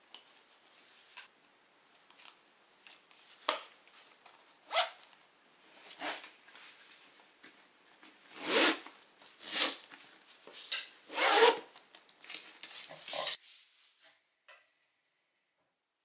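Nylon backpack being handled and zipped: soft rustling of the fabric, then a run of louder zipper pulls from about eight seconds in that stop abruptly shortly after thirteen seconds.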